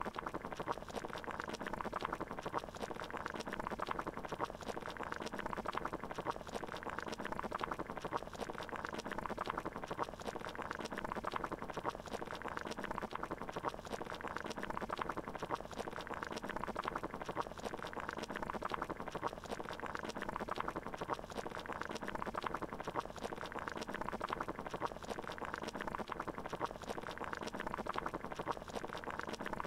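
Water boiling in a pot: a steady, dense bubbling that does not change.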